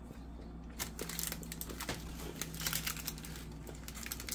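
Foil chocolate-bar wrappers crinkling and crackling as hands handle and press on the opened bars, with small irregular clicks.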